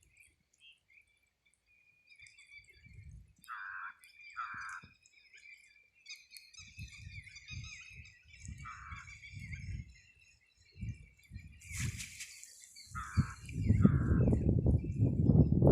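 Birds chirping and calling, several short calls repeated. Low thuds and rustles come in the middle. About thirteen seconds in, a loud, rough low noise starts and drowns them out.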